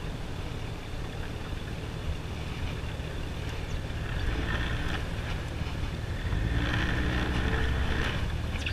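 Outboard motor of a small fishing boat running at low speed, with wind rumbling on the microphone. The engine grows louder briefly about four seconds in and again from about six and a half to eight seconds in, as the boat is driven onto its trailer.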